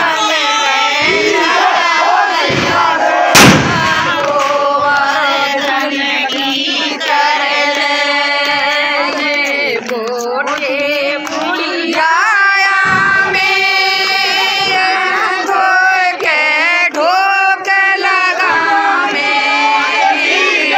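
A crowd of voices singing together, loud and continuous, with one sharp bang about three and a half seconds in.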